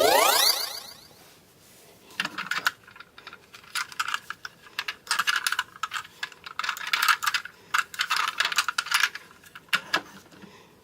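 A short rising swoosh at the start, then a long run of irregular clicks and rattles from small hard plastic toy pieces being handled and knocked together.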